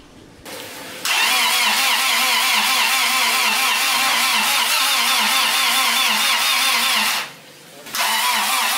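Starter motor cranking a swapped Honda VTEC four-cylinder engine in an even rhythm for about six seconds without it catching, a short pause, then a second bout of cranking near the end. The owner finds the engine low on compression: it cranks but does not fire.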